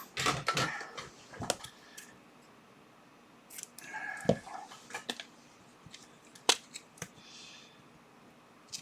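Bench handling sounds from making and applying a label: a string of sharp clicks, taps and short rustles, with a snip-like click from cutting the label tape.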